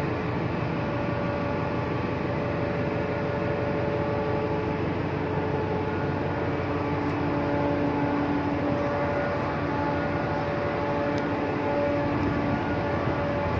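Steady hum of a ship's machinery running at anchor, an even noise with several steady tones in it that shift a little about halfway through.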